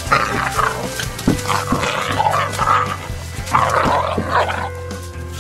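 Young hunting dogs play-fighting, growling at each other in three rough bouts, over steady background music.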